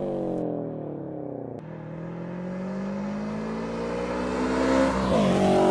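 Subaru BRZ's 2.0-litre flat-four running through an ARK Grip stainless steel cat-back exhaust: the revs fall for about a second and a half, then the engine pulls under acceleration with a pitch that climbs steadily, rising faster and louder near the end.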